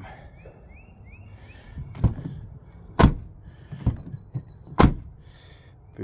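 A Jeep Commander's freshly swapped rear door being shut and latched: three sharp thunks over about three seconds, the loudest about three seconds in, with lighter clicks between them.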